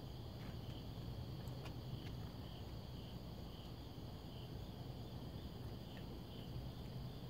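A night insect chirping in a steady rhythm, about three chirps every two seconds, over a low steady hum, with a few faint clicks.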